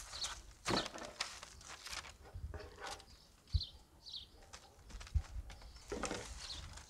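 Parchment paper crinkling and rustling as a roasted rack of veal is handled on it, with a few soft knocks. A bird chirps in short falling notes several times.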